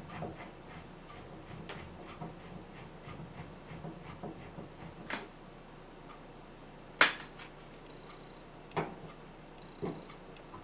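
Scattered light clicks and knocks of ventilation fan parts being handled and taken apart for cleaning, with one sharp click about seven seconds in and a few duller knocks after it.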